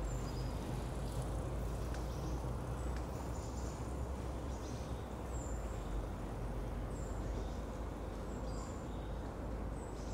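Steady low rumble of distant city traffic, with small birds giving short, high chirps every second or two.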